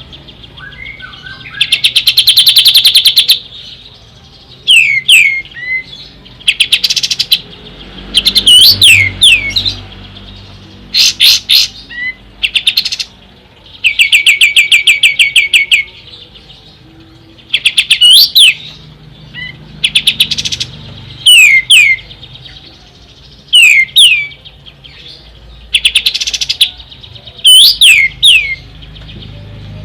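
Kapas tembak bird singing: loud, rapid trills of evenly repeated notes, each burst a second or two long, alternating with sharp, steeply falling whistled notes, phrase after phrase with short pauses between.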